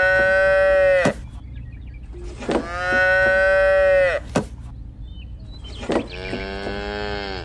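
Cattle mooing, added as a sound effect: two long, level moos about two seconds apart, then a third, lower call near the end. Sharp clicks mark where the calls are cut off.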